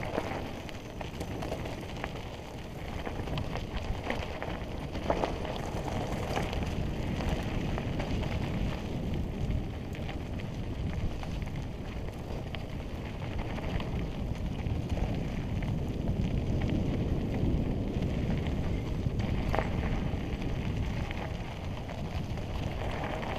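Mountain bike rolling down a rocky dirt single track: tyres crunching over dirt and stones, with wind rushing over the microphone. A few sharp knocks from the bike hitting rocks stand out.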